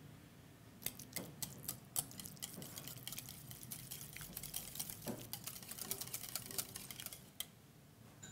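Wire balloon whisk beating egg yolks and ricotta cheese in a glass bowl, the wires clicking and tapping against the glass in a quick, irregular run of ticks. It starts about a second in and stops about seven seconds in.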